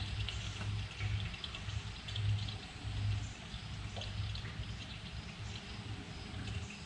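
Fresh motor oil pouring from a plastic jug through a funnel into an engine's oil filler, with an uneven low glugging.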